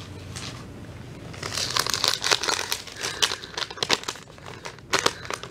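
A crumpled paper receipt being unfolded and handled, crinkling in a run of quick crackles that starts about a second and a half in.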